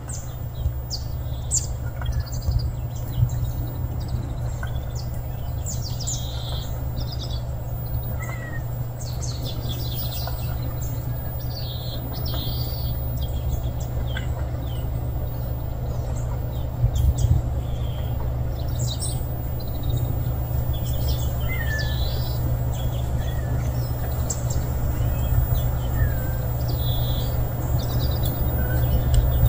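Small birds chirping on and off throughout, short high calls over a steady low rumble.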